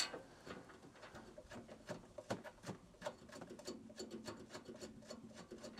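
Faint, scattered light clicks and rubbing from hands handling the metal seat base and its wiring, with a faint low hum in the middle.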